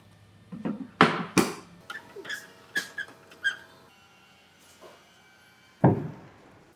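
Carved wooden body panels knocking and tapping against the wooden car body as a panel is handled and fitted into place: a string of separate wooden knocks, the loudest about a second in, with a heavier thump near the end.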